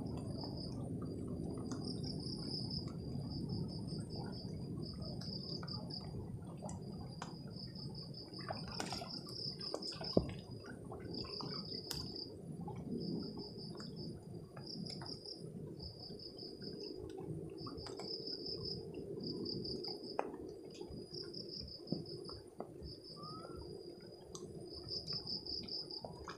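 An insect chirping in short, rapidly pulsed high trills that repeat every second or so, over a steady low rustle with a few sharp clicks.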